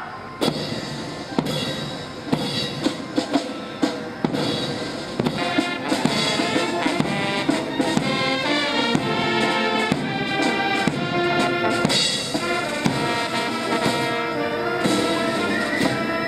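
Brass band music with drums.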